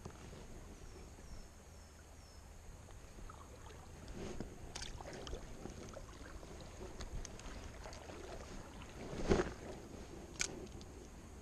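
River water moving and splashing around a wading angler, with scattered light handling noises. A louder splash-like burst comes about nine seconds in, followed a second later by a sharp click.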